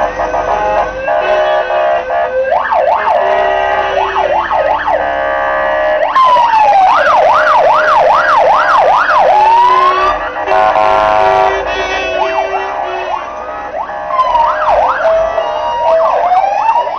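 Several fire engine sirens sounding together, loud: a fast yelp sweeping up and down about twice a second over steady siren tones. The yelping is loudest a few seconds in and again near the end.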